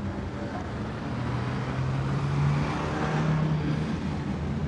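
Ferrari Testarossa's flat-twelve engine running as the car pulls away at low speed; its note rises about a second in and then holds steady.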